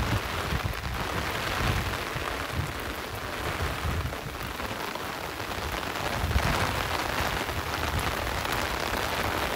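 Heavy rain falling, a steady dense hiss of drops on the surfaces around.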